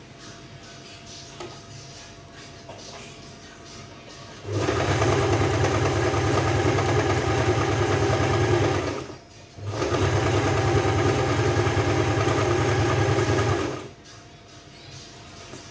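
Electric household sewing machine stitching a hem. It starts about four seconds in, runs steadily for about four seconds, stops for a moment, then runs again for about four more seconds before stopping.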